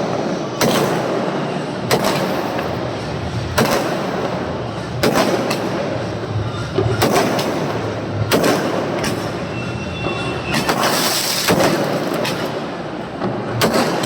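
Aerial firework sky shots going off in a series, a sharp bang roughly every second and a half over a continuous rushing, crackling din.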